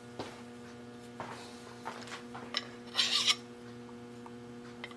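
Hand file worked over a small metal part on a lathe, with one louder rasping stroke about three seconds in among a few light metallic clicks, over a steady machine hum.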